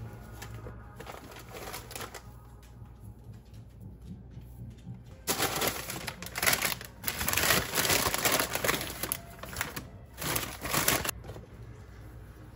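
Brown paper grocery bag rustling and crinkling as it is handled and lifted out of a canvas tote bag, in a run of loud rustles that starts about five seconds in and stops about a second before the end.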